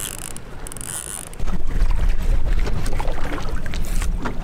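Steady low rumble of wind on the microphone over idling outboard engines on a sport-fishing boat, which comes in much louder about a second and a half in, with a few short knocks over it.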